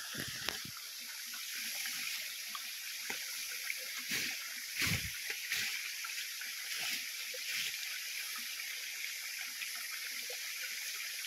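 Steady rush of flowing stream water, with scattered crackles and rustles of leaves and branches as someone pushes through dense undergrowth, and two dull thumps about four and five seconds in.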